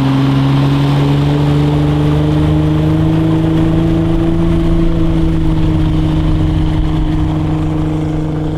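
VW 2.8 VR6 engine in a 1967 Silverline runabout running steadily with the boat on plane, its note climbing slightly over the first few seconds and then holding, over the rush of water from the hull.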